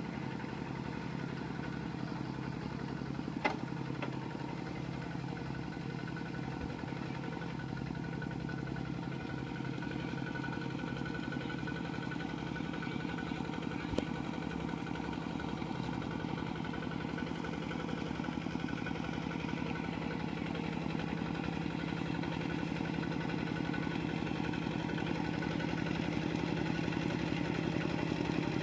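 Kubota RT120 single-cylinder diesel on a two-wheel walking tractor running steadily under load as it pulls through paddy mud, growing slowly louder as it comes closer. Two brief sharp clicks, one a few seconds in and one about halfway.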